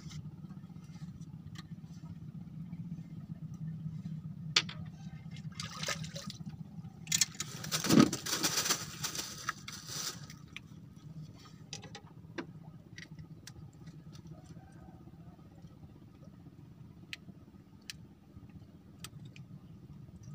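A hooked fish thrashing and splashing at the water's surface for a few seconds, loudest about eight seconds in, as it is played and lifted out, over a steady low hum. Scattered light clicks of rod and tackle follow.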